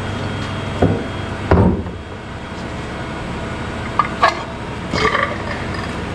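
An engine running steadily, with a few short knocks and clunks over it, about a second and a half in and again around four and five seconds in.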